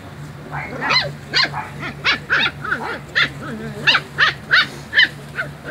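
Six-week-old puppies yipping and barking: a quick run of short, high-pitched yips, about three a second, starting about half a second in. A steady low hum runs underneath.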